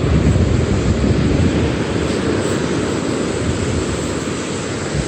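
Steady rushing noise of wind on the microphone and breaking surf, heaviest and fluttering in the low end, easing slowly over a few seconds.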